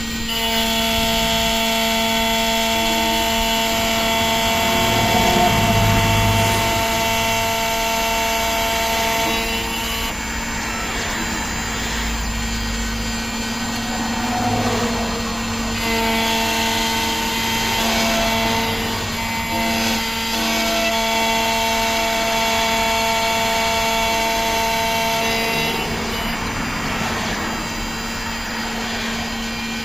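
Xhorse Condor Dolphin XP-005 automatic key cutting machine milling an aluminum key blank: a steady motor whine over a rasping cutting noise. The whine drops away about ten seconds in, comes back a few seconds later, and drops away again near the end as the cutter moves between passes.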